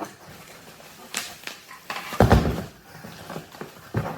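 A few knocks and handling noises from a tripod stand being lifted out and handled during unpacking. The loudest knock comes a little over two seconds in.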